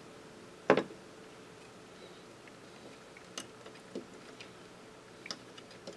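A few small clicks and taps as wires are handled and tucked around a quadcopter's carbon-fibre frame and flight controller; the sharpest click comes a little under a second in, with fainter ones spread through the rest.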